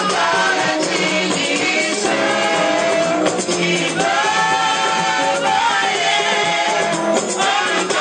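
A woman sings a gospel praise song into a microphone, amplified, with other voices joining and hand drums keeping the beat.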